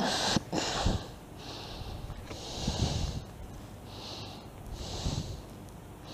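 A man breathing hard through his nose: about six short, hissing breaths in and out, roughly one a second, strained by the pain of a treble hook stuck in his knuckle.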